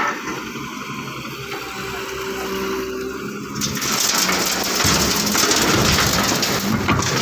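Old excavator working: its engine runs steadily, then about halfway a loud rushing, rain-like noise with a low rumble sets in.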